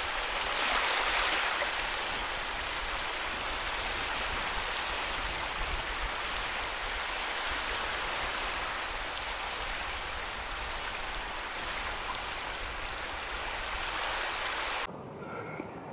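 Shallow seawater washing over a sandy shore: a steady rushing hiss, a little louder about a second in, cutting off abruptly near the end.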